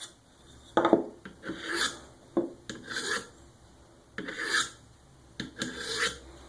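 Cold Steel SRK's VG-1 steel blade drawn across the ceramic hone of a Work Sharp guided sharpening system in about five separate short strokes, with a couple of light clicks between: final passes refining the edge.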